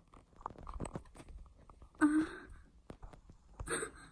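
Soft, sticky clicks and crackles of slime shifting against a phone's microphone as the phone lies buried in the slime, with a short muffled burst about halfway through.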